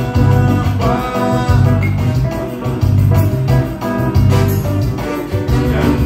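Live band playing dance music: electronic keyboards and guitar over a heavy, pulsing bass beat.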